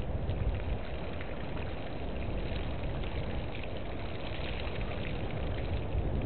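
Outdoor bush ambience: a steady low rumble with faint, scattered high ticks and chirps through the middle seconds.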